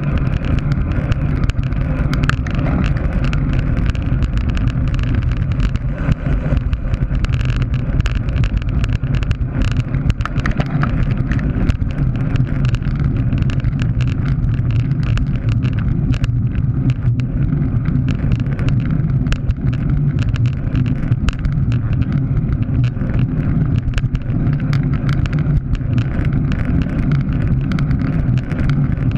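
Road bicycle ridden fast on asphalt: wind buffeting the bike-mounted camera's microphone over tyre noise, a steady loud low rumble with scattered small clicks and rattles.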